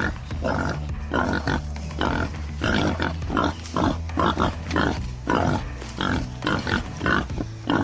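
Warthog grunting and squealing in a rapid series of short calls, about two or three a second.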